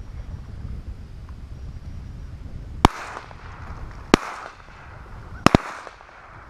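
Shotgun shots at flying teal: four reports, the first about three seconds in, another a second or so later, and two almost on top of each other near the end, each with a short echo. Wind rumbles on the microphone.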